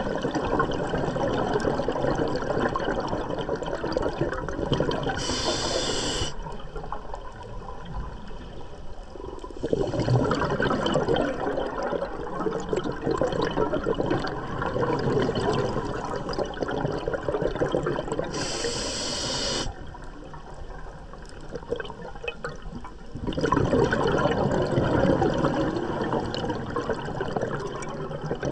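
Scuba diver breathing through a regulator underwater: two short inhalation hisses, about five and eighteen seconds in, each followed by a long stretch of exhaled bubbles rushing out.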